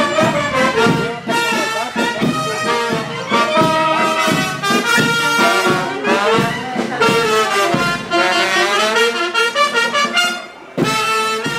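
Small brass band of trumpets and trombones playing a tune, with a brief pause near the end.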